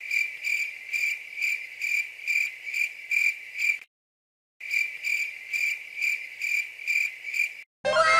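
Cricket chirping in an even rhythm, about two to three chirps a second, breaking off briefly before the middle and starting again.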